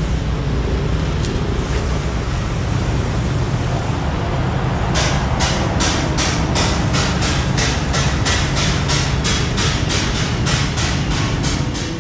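Steady low rumble of a running engine, joined about five seconds in by a regular ticking, about three to four ticks a second.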